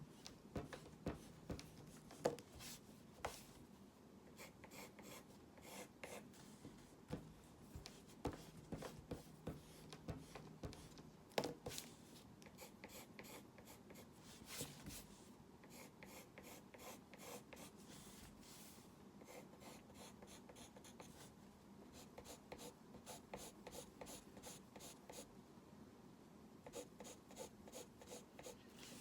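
Faint strokes and taps of a pen drawing on a surface, in irregular short scratches with a few sharper taps.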